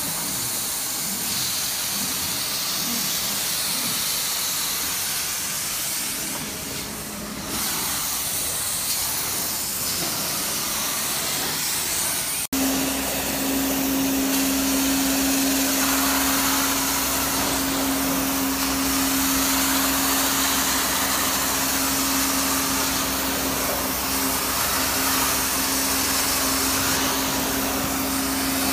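Carpet-cleaning extraction wand drawing air and water up from the carpet, a steady rushing hiss. After a break about twelve seconds in, a steady hum runs along with it.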